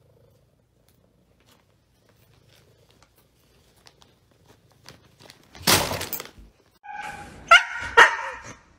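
A plastic snack bag crinkling faintly as a cat noses into it, with a loud burst of rustling noise a little past halfway. Near the end a husky vocalizes in a few high, wavering yowls.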